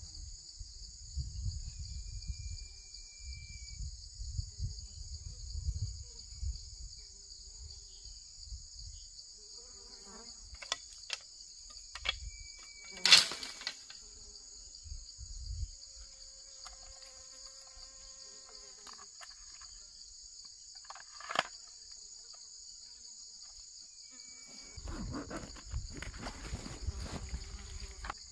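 Steady, high-pitched insect chorus running throughout, with bursts of low rumble at the start and near the end and a sharp click about halfway through, the loudest moment.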